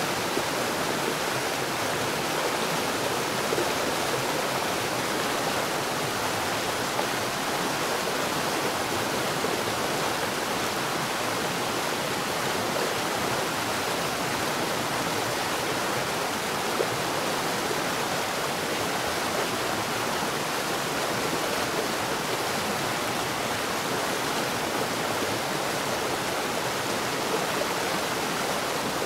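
Water falling at a rapid rate underground: a steady, unbroken rush of falling water.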